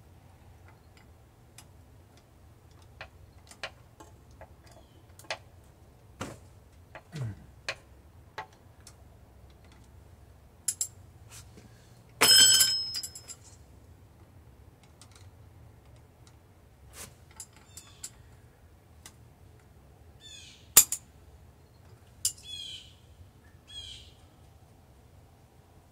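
Wrenches clinking and tapping on the governor linkage of a stopped diesel engine as fittings are loosened: scattered light metallic clicks, and one loud clang that rings briefly about twelve seconds in. A bird chirps a few times near the end.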